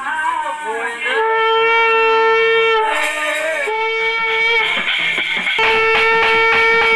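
A wind instrument playing long held notes, each bending in pitch where it begins and ends. Regular beats drop out at the start and come back about two-thirds of the way in, under a last long note.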